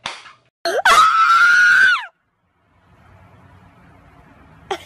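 One last clap, then a woman's scream, loud and very high-pitched, held for about a second and a half, rising as it starts and sliding down at the end. Faint hiss follows.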